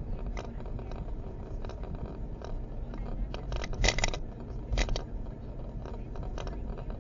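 Irregular light knocking and clicking ('koto-koto', 'kacha-kacha') in a faulty dashcam's recording, over the low rumble of a car on the road. A louder cluster of rattling clicks comes about four seconds in, and another shortly before five seconds. The noise is the sign of the broken dashcam.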